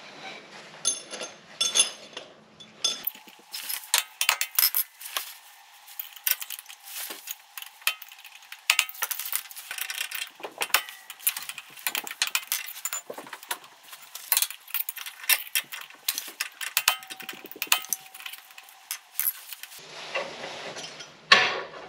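Hand tools clinking and clicking against the transfer case's front output flange and its nut, in an irregular run of small sharp metallic taps.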